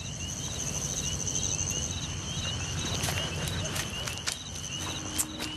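Crickets chirping steadily in a rapid, pulsing high-pitched trill, over a low background rumble, with a few scattered faint clicks.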